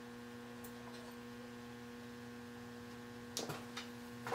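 Steady low electrical mains hum, with a few light clicks and knocks of tool handling near the end.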